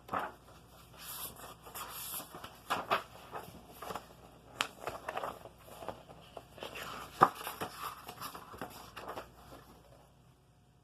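Faint handling noise from a paper picture book: irregular rustling and light scraping, with a couple of sharper clicks, one about halfway through and one a few seconds later.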